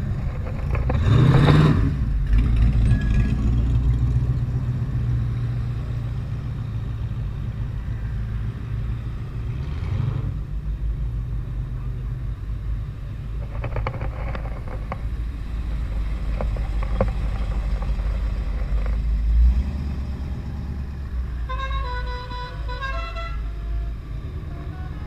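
Classic cars driving slowly past one after another, their engines making a steady low rumble that swells as the first one goes by. Near the end a car horn sounds a quick run of short notes at changing pitches.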